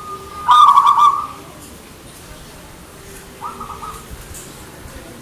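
Zebra dove (perkutut) cooing: a loud phrase of rapid, pulsed coo notes about half a second in, then a softer, shorter coo about three and a half seconds in.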